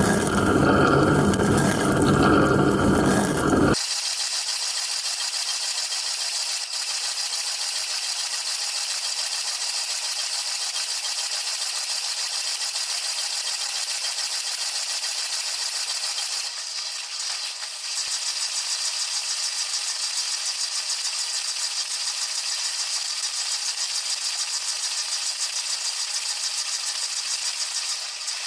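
Wash water from a dishwasher's spray arms pelting the dishes and the camera inside the running machine, a steady hissing rattle. For about the first four seconds it is louder and deeper, then it settles to a thinner, even hiss.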